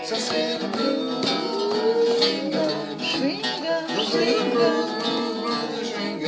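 Two guitars, an archtop and an acoustic, playing a swinging blues instrumental passage between sung lines.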